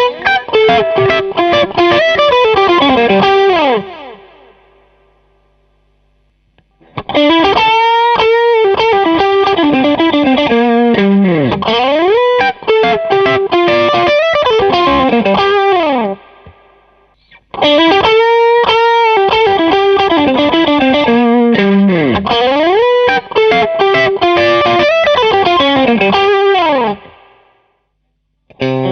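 Electric guitar played through a Klon-style overdrive pedal, with a lightly overdriven tone. It plays three lead phrases full of string bends, each ringing out and stopping before a pause of a second or two.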